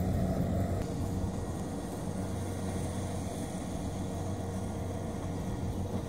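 Kubota combine harvester's diesel engine running steadily at working speed as it cuts rice, a low even hum with a slightly weaker hum after about a second.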